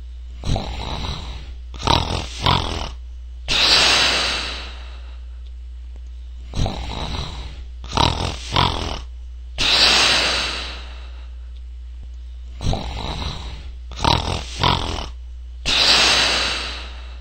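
A person snoring: three snore cycles about six seconds apart, each one or two short rattling snorts and then a long breathy hiss.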